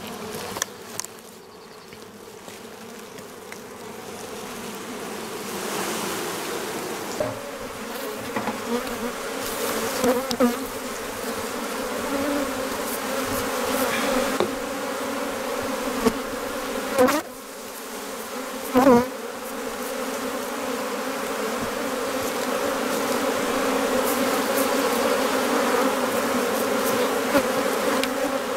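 Honeybees buzzing around an opened hive box, a steady hum that grows gradually louder as the colony is disturbed by frames being lifted out. About two-thirds of the way through, single bees pass close by twice in brief, loud buzzes that rise and fall in pitch.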